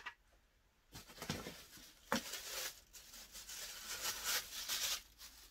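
Plastic wrapping crinkling and rustling as a vacuum cleaner accessory is unwrapped by hand, with a sharp tap about two seconds in.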